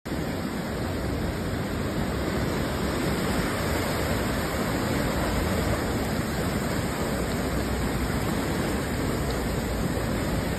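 Steady, even rushing of torrential typhoon rain and floodwater.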